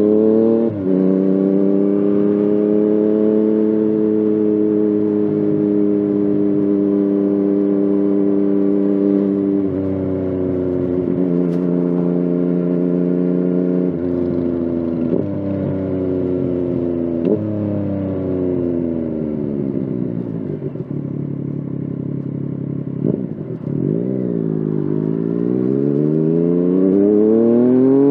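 Yamaha FZ-09 (MT-09) three-cylinder motorcycle engine under way, running at fairly steady revs with several short breaks at gear changes. About two-thirds in the revs fall away for several seconds, dip briefly, then rise steadily again through the last few seconds.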